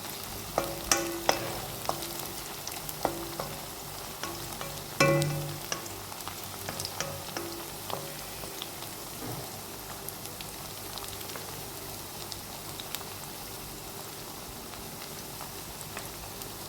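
Onions and green chilies sizzling as they fry in a pan of oil, a steady hiss. During the first few seconds a spatula clacks and scrapes against the pan as they are stirred, with one louder knock about five seconds in.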